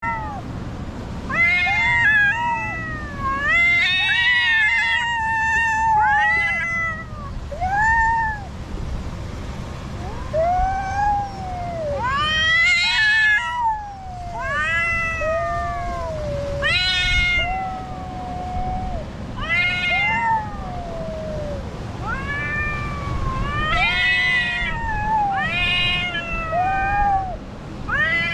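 Two cats, an orange tabby and a grey one, yowling at each other in an aggressive standoff. It is a long run of drawn-out howls, each rising and falling in pitch, some held level, coming every second or two: the threat calls of cats squaring up to fight.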